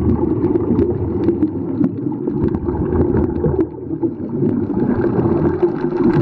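Muffled underwater noise picked up through a camera's waterproof housing: a steady low rumble with scattered faint clicks throughout.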